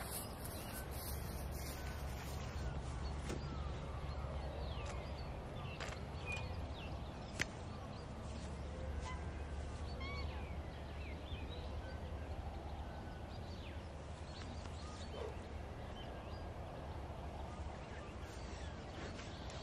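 Waterfowl calling across a lake: many short, scattered calls over a steady low rumble, with one sharp click about seven seconds in.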